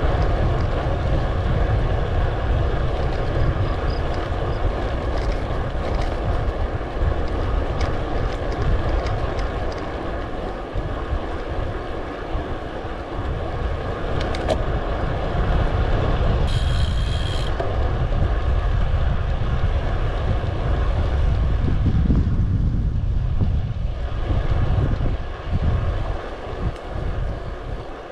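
Wind buffeting the microphone over rolling road noise while riding, easing off about ten seconds in and again near the end. A brief high ringing tone just past the middle.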